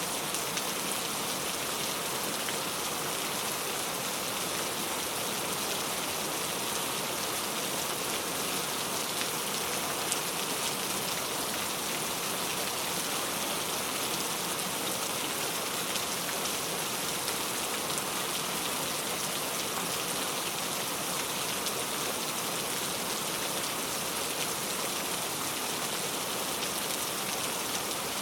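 Steady heavy rain falling, a dense even patter of raindrops.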